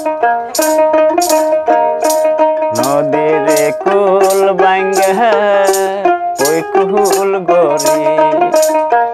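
A small plucked folk lute plays a short melody, then a man sings one long line of a Bengali folk song from about three seconds in, and the lute takes over again near the end. A rattle keeps time about twice a second.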